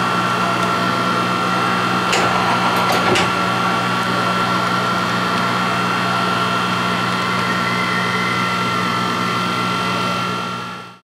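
Colchester CNC4000 CNC lathe running, with a steady hum and a thin, even whine. A few sharp clicks come about two and three seconds in as the four-station Duplomatic turret indexes to another tool. The sound fades out near the end.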